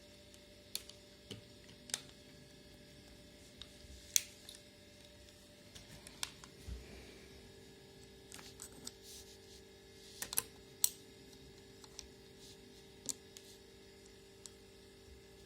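Scattered light clicks and taps at irregular intervals, with one dull low knock near the middle, from handling a 2nd Moscow Watch Factory 'Dorozhny' folding travel alarm clock. A faint steady mains hum runs underneath.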